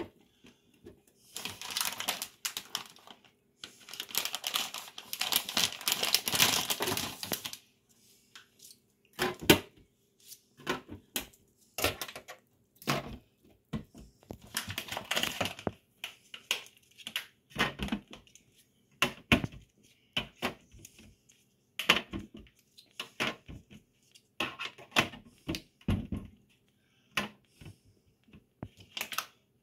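Plastic crinkling and rustling for several seconds as the clear plastic grow cups are handled, then a long string of sharp plastic clicks and knocks as the cups are pressed one by one into the holes of a hydroponic grow tray.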